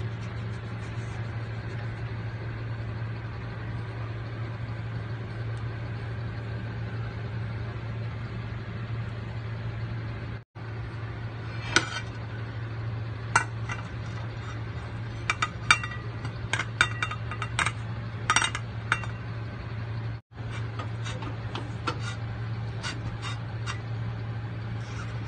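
Kitchenware clinking and knocking: a plate and utensil tapping against a metal cake pan in scattered sharp clicks through the middle and later part, over a steady low hum.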